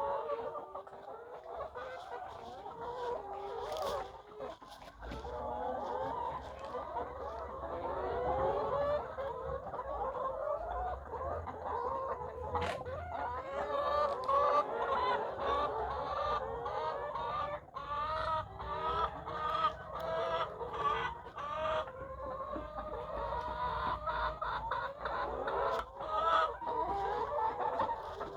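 A flock of layer hens clucking and calling continuously, many birds at once, with scattered sharp clicks and a low steady hum under them from a few seconds in.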